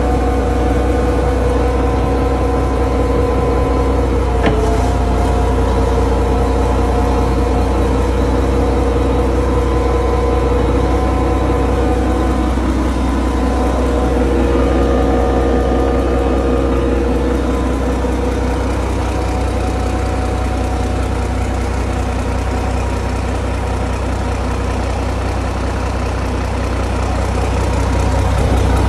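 Yanmar marine diesel engine idling steadily: a low drone with a steady whine above it.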